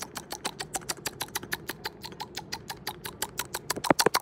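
Rapid run of dry mouth clicks, about eight to ten a second, from a very dry mouth, with a few louder clicks near the end.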